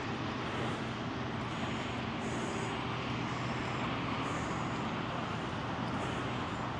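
Steady hum of road traffic passing at a distance, an even noise with no single vehicle standing out.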